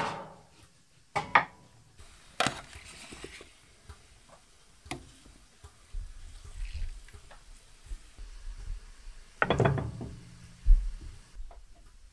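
Metal ladle and utensils knocking and scraping against a large metal cooking pot while handling boiled bull hearts. There are scattered single knocks, then a louder cluster of clatter near the end followed by a dull thump.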